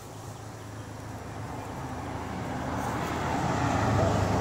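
A motor vehicle passing by, its engine and road noise swelling over a few seconds to a peak near the end, then starting to fade.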